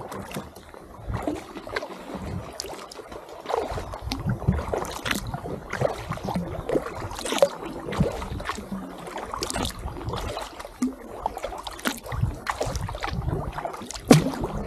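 Kayak paddle strokes in calm lake water: the blades dip and pull through the water with small splashes and drips off the paddle, a stroke about every second.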